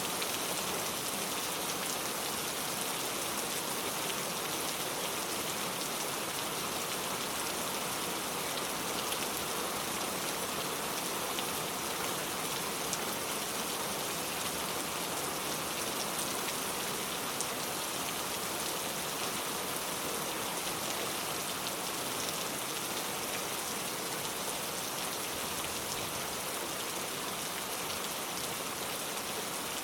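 Steady heavy rain falling, a dense even hiss of drops on surfaces.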